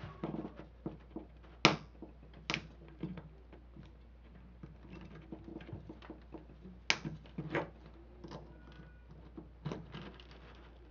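Sewing needle held in needle-nose pliers pressed and worked against the thick bottom of an aluminium drink can: irregular sharp metallic clicks and taps, the loudest about one and a half seconds and seven seconds in. The needle has not yet pushed through the thick base.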